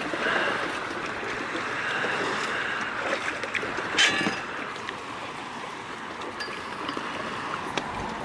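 Shallow lake water sloshing against a jet ski's hull as a person wades and pushes it, with one sharp knock about four seconds in.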